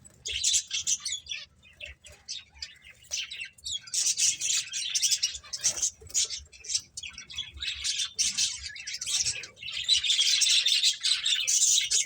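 Several pet finches chirping and twittering rapidly, in busy bursts with short lulls between them.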